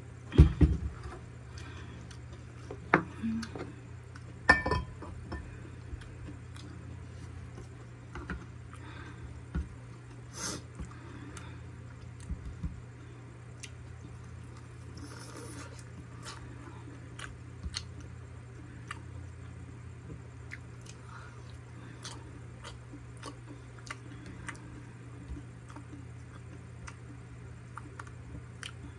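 Close mouth sounds of chewing soft siomai dumplings, with small clicks of wooden chopsticks, over a steady low hum. A few knocks near the start, the loudest about half a second in, as a metal water bottle is set down on the table.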